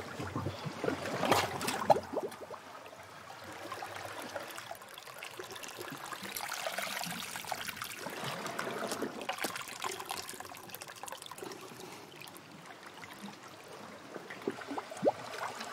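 Sea water lapping and trickling over rocks, swelling and fading every few seconds, with a few sharp knocks about two seconds in.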